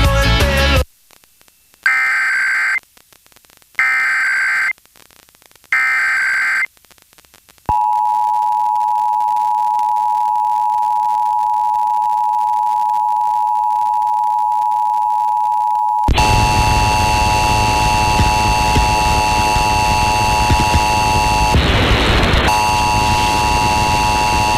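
Emergency Alert System test signal. Music cuts off and three bursts of SAME digital header data follow, each about a second long with short gaps. Then the EAS two-tone attention signal (853 and 960 Hz) sounds steadily; about halfway through it turns harsher and buried in static hiss, with a brief burst of noise near the end.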